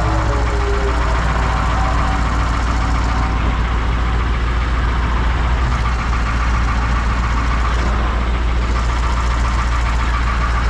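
Diesel engine of a Peterbilt 389X rotator tow truck running steadily at close range.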